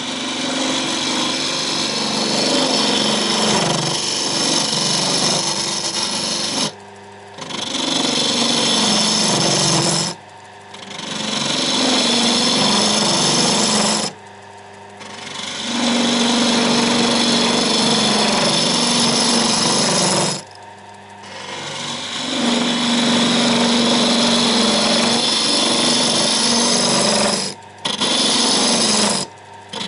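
Wood lathe spinning a wooden blank while a turning tool hollows a hemisphere into its end, giving a loud scraping, hissing cut with a wavering low hum. The cut stops for about a second around six times, when the tool comes off the wood, and builds back up as it re-engages.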